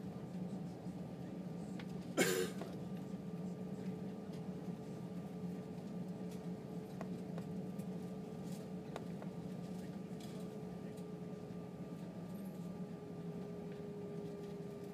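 Airbus A320 cabin noise while taxiing: a steady low hum from the idling jet engines, with a faint steady whine over it. A short sharp clatter about two seconds in.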